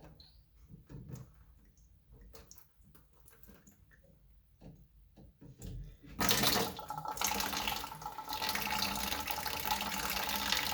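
A few faint handling clicks, then water suddenly starts running from a tap about six seconds in and keeps up a steady rush.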